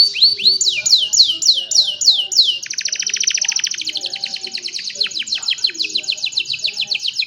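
Young domestic canary singing a series of repeated phrases of falling whistled notes: at first about three slow sweeps a second, then from just under halfway in a fast rolling trill of quick falling notes that carries on to near the end.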